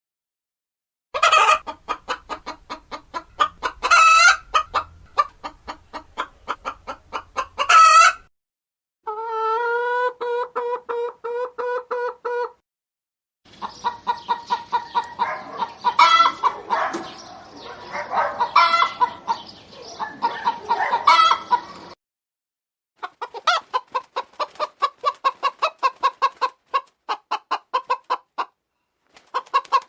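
A hen clucking and cackling: fast runs of clucks broken by louder squawks. It comes in several separate stretches with short silent breaks, and one stretch in the middle is a steadier run of pitched calls.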